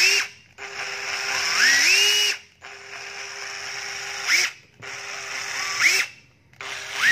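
Makita cordless drill motor test-run in short trigger bursts, about four or five times. Each run starts with a quickly rising whine as the motor speeds up, holds steady, then cuts off.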